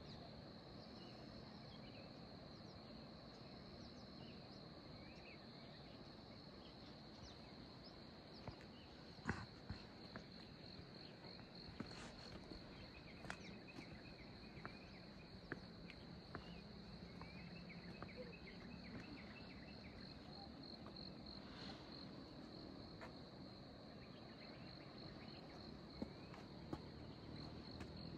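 Insects trilling faintly in a steady, high, finely pulsed tone, like crickets, with a few sharp clicks scattered through the middle.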